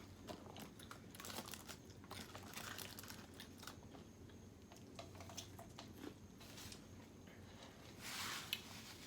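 Faint close-up eating sounds: bites, chewing and small crunches with scattered mouth clicks. A brief hiss comes about 8 seconds in.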